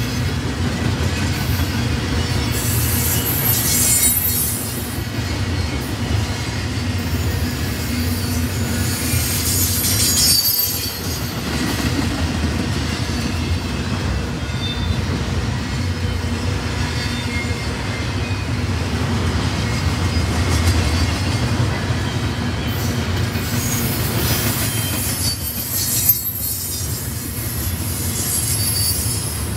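Double-stack intermodal freight train's well cars rolling past with a steady low rumble, the wheels squealing at high pitch several times: about three seconds in, around ten seconds, and again near the end.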